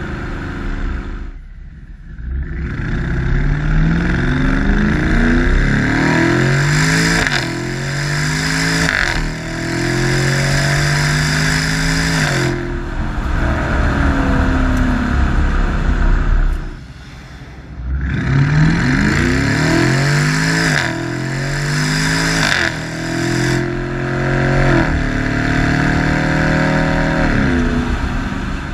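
BMW 550i V8 through a Meisterschaft aftermarket exhaust, accelerating hard in two runs. The pitch climbs through each gear and drops at every upshift, with a brief quiet lift-off before each run.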